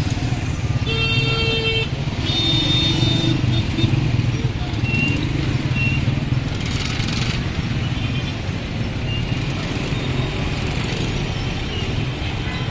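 Busy street traffic: a steady rumble of car and motorbike engines, with a couple of horn toots in the first few seconds and short high beeps a little later.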